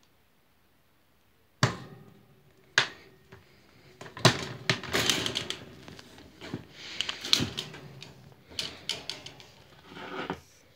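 A wire pet cage being handled and opened: a sharp knock about one and a half seconds in, another a second later, then several seconds of irregular clattering, rattling and rustling with louder knocks, stopping just before the end.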